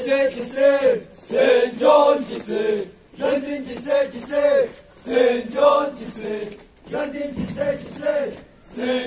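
A group of young male voices chanting together in unison, in short rhythmic phrases about a second long with brief pauses between them, repeating over and over.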